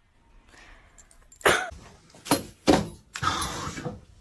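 A pet prairie dog giving a few short, sharp calls in quick succession, each dropping in pitch; the last one is longer and harsher.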